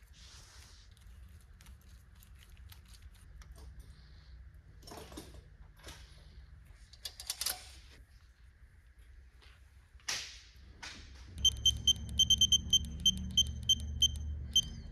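Digital torque wrench beeping in a quick high-pitched series, about four beeps a second, over a low buzz, as it is pulled up to its target torque on an LS3 cylinder-head bolt; before that, scattered clicks and clatter of tools and parts on the engine.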